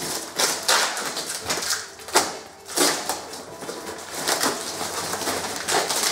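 Packing tape and cardboard being torn off a long wrapped parcel: a run of short ripping and rustling sounds, about one every half second.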